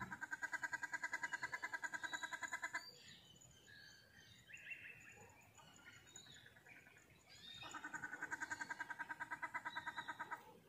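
Birds calling: a fast, evenly pulsed call of about eight notes a second runs for nearly three seconds, then scattered chirps and whistles follow, and the pulsed call starts again about three-quarters of the way through.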